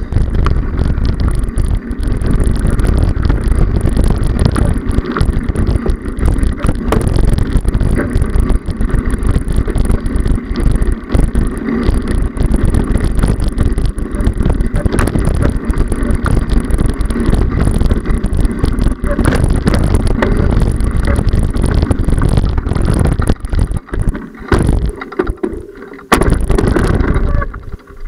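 Wind buffeting a bicycle handlebar camera's microphone while riding, a steady deep rumble with many small knocks and rattles from the bike and mount over a rough dirt path. It eases off for a couple of seconds near the end.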